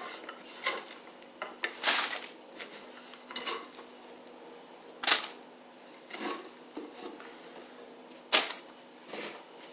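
Clear plastic roasting bag crinkling and rustling in short bursts as it is handled and sliced onion is dropped in, the loudest rustles about two, five and eight seconds in.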